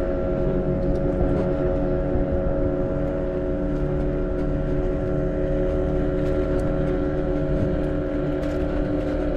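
Small boat's engine running steadily at an even pitch.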